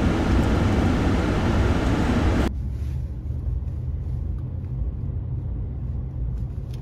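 A steady rushing noise inside a pickup truck's cab. About two and a half seconds in it cuts suddenly to a quieter, steady low rumble of the Ford F-150 driving, heard from inside the cab.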